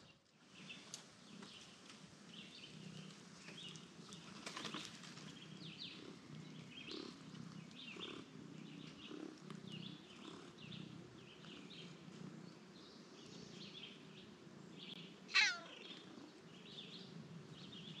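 A cat purring faintly with a low, steady pulse. Near the end there is one short, high cry that falls sharply in pitch.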